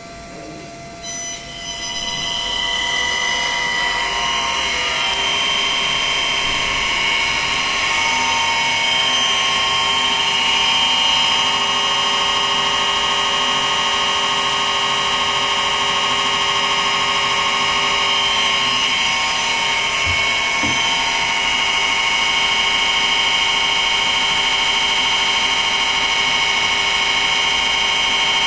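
Three-phase induction motor fed by an ABB ACS variable-frequency drive, starting about a second in and ramping up over a few seconds, then running steadily with a high-pitched whine of several steady tones from the drive's switching. The drive shows it running forward at about 27 Hz.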